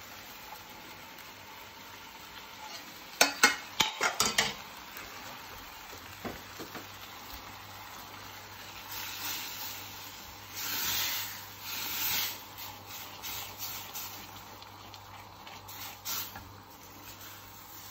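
Beer-and-roux sauce being stirred and scraped with a spatula in a stainless steel sauté pan, louder for a few seconds around the middle. A quick run of sharp metal clanks from the ladle and pans comes about three to four seconds in.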